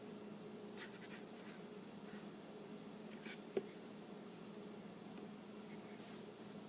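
Faint rubbing and handling noises of a pistol's polymer frame in the hands, with one short sharp click a little past halfway, over a low steady hum.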